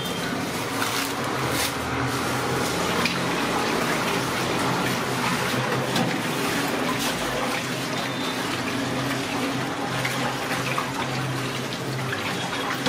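A hand swishing and stirring water and beaten eggs in a large aluminium pot, a steady sloshing of liquid as parotta dough liquid is mixed.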